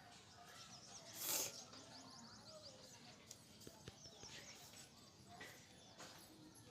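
Faint bird chirping in quiet surroundings, with a short louder noise about a second and a half in.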